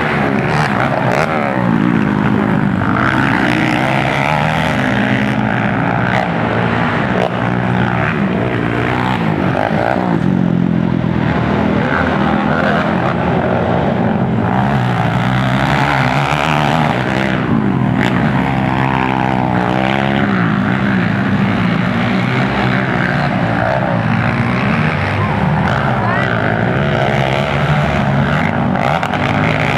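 Several racing quad (ATV) engines revving hard at once, their pitch climbing and dropping with throttle and gear changes. Around two-thirds of the way through, one engine sweeps sharply up and down in pitch.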